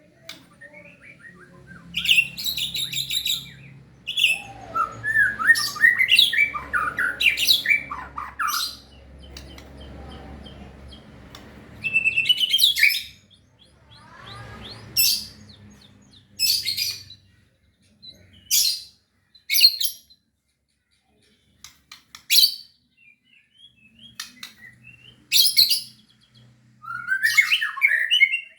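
White-rumped shama (murai batu) singing: a string of short, loud bursts of high chirps, trills and sliding whistled phrases, separated by pauses.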